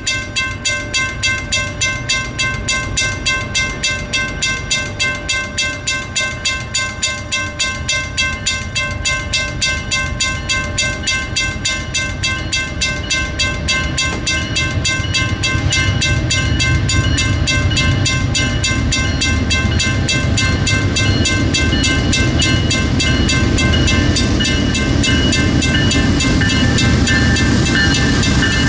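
Railroad grade-crossing bell ringing steadily at about three dings a second. From about halfway through, the rumble of an approaching train rises beneath it and grows louder toward the end.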